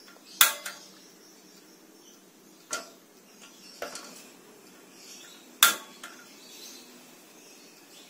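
Portable butane gas stove being lit: four sharp metallic clicks of its igniter knob, spread over about five seconds, loudest at the first and last. It is being clicked repeatedly to catch the flame.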